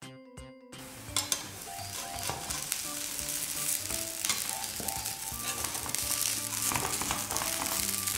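Potato pancake batter sizzling and crackling as it fries in a nonstick pan greased with a little butter. The sizzle starts abruptly about a second in and grows louder, with a light tune playing faintly underneath.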